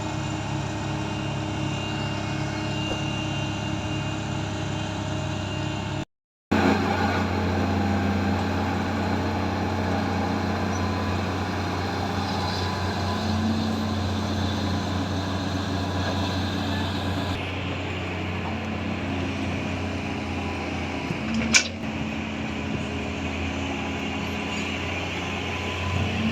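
Diesel engine of heavy earthmoving machinery running steadily under work, with one sharp knock about 21 seconds in.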